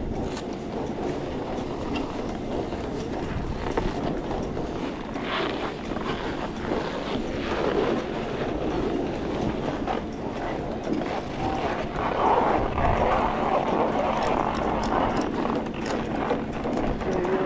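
Skis sliding and scraping over snow in a steady rush of noise, with scattered small clicks and knocks, growing a little louder past the middle.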